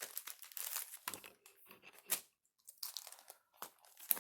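Packaging crinkling and crackling in irregular bursts as it is handled, with a sharper crackle about two seconds in and another near the end.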